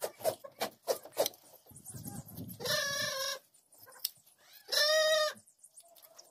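Hand blade shears snipping through a sheep's fleece in a few quick clicks, then a sheep bleats twice, each call under a second long and the loudest sound here.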